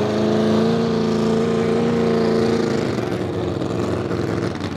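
V8 engine of a modified pulling tractor running at high revs under load while dragging a weight-transfer sled. Its steady, even pitch gives way to a rougher, less even sound about three seconds in.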